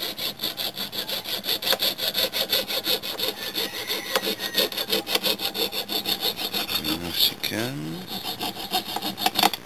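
Fine-bladed hand frame saw cutting thin copper sheet at a door's edge, in quick back-and-forth strokes with a short break about seven seconds in.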